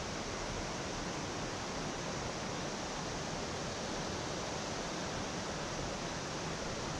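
Steady rush of flowing river water running over rocks.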